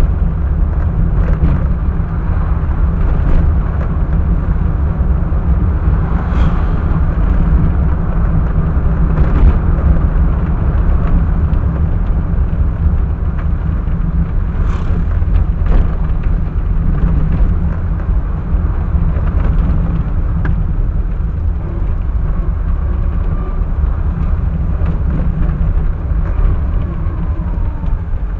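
Car in motion heard from inside the cabin: a steady low rumble of engine and road noise, with a few short knocks and rattles from bumps along the way.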